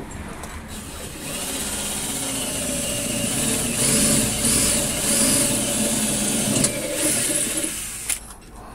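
Cordless drill running under load, drilling into the steel ramp. It starts about a second in, runs continuously with a slightly wavering pitch, and stops shortly before the end.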